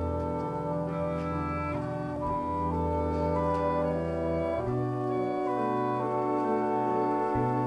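Live musical-theatre pit band playing slow, sustained chords that shift every second or two.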